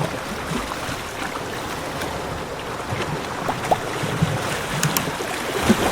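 Sea waves washing against rocks: a steady rush of surf with scattered small splashes and knocks, getting a little busier toward the end.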